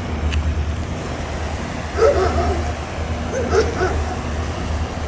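Steady low rumble of a vehicle in motion, with a few brief higher-pitched calls about two seconds in and again at about three and a half seconds.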